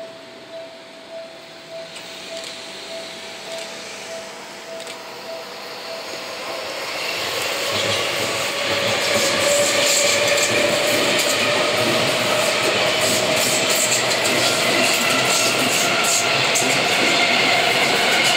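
Seibu 6000-series electric train accelerating out of a station and passing close by: its motor whine climbs in pitch over the rumble of the wheels and clacks over rail joints, growing loud about eight seconds in. Before the train arrives, a faint pulsing tone sounds and stops about six seconds in.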